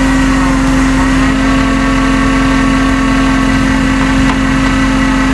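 Tow truck's engine running steadily at raised speed while its winch spools a new cable onto the drum, with a constant whine that dips slightly in pitch about a second in and then holds.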